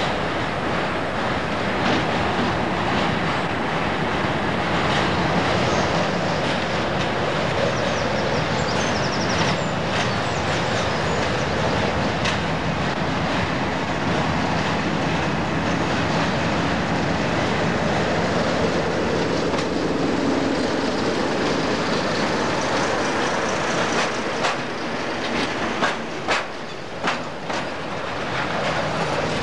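British Rail Class 37 diesel locomotive with its English Electric V12 engine, hauling a freight train past at close range. The steady engine and rail noise gives way, from about 24 seconds in, to the wagons' wheels clicking over rail joints.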